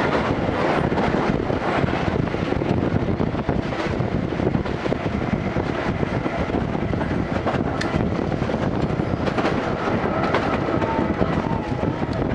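Steady running noise inside a vintage passenger coach hauled by a steam locomotive: wheels rumbling on the rails, with scattered sharp clicks.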